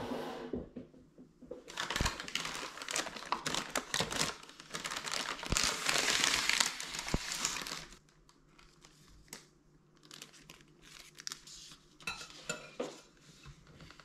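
Paper bag and clear plastic cake wrap crinkling loudly as a slice of cake is pulled out and unwrapped, then quieter rustling and a few light taps for the last several seconds.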